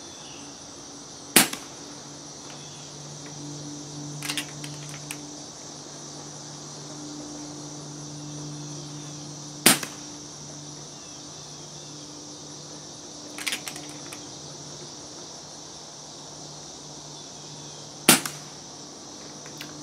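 Three shots from an FX Streamline PCP air rifle with a DonnyFL Sumo moderator at power level 2, each a dull thud, about eight seconds apart. Between the shots come softer clusters of clicks as the action is cycled.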